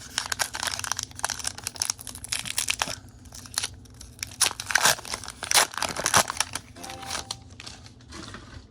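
Foil Pokémon booster pack wrapper being torn open and crinkled by hand: a dense run of irregular crackles and rips, loudest about five to six seconds in.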